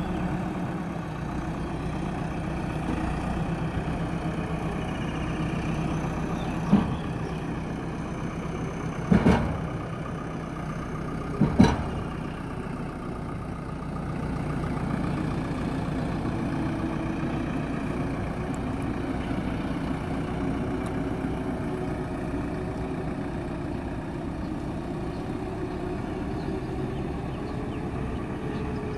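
JCB 3DX backhoe loader's diesel engine running steadily as the machine drives, carrying a heavy concrete culvert pipe slung from its front bucket. Three sharp knocks stand out, about 7, 9 and 12 seconds in.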